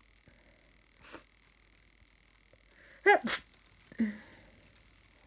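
A person sniffles once, then sneezes about three seconds in: a short rising in-breath and a sharp, loud 'choo', followed by a brief voiced exhale. A sniffly nose at what feels like the start of a cold.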